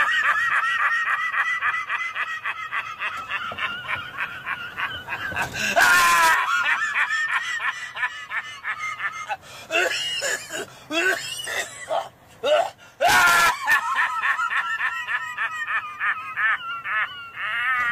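A man laughing hysterically: a long, high-pitched, shrieking laugh in rapid pulses, broken by loud gasping in-breaths about six and thirteen seconds in.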